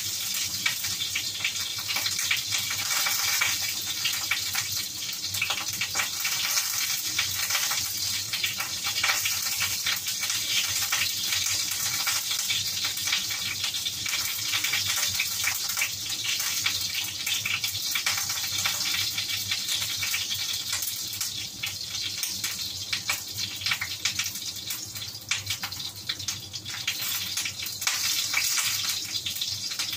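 Pork cheek frying in a pan: a steady sizzle with many small crackling pops, easing slightly in loudness past the middle.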